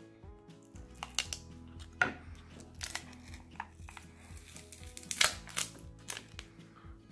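Crinkling, crackling and sharp clicks of a phone's lithium battery pouch being pried and peeled off its adhesive, a handful of separate snaps over soft background music.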